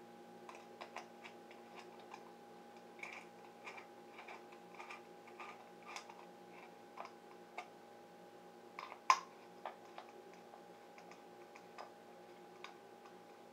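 Scattered light clicks and taps of a screwdriver and fingers tightening a nut and bolt on a 3D printer's Y-axis belt clip, with one sharper click about nine seconds in. A faint steady hum runs underneath.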